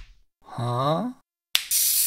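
A cartoon character's short wordless vocal exclamation lasting under a second, its pitch dipping and then rising. A hiss starts suddenly near the end.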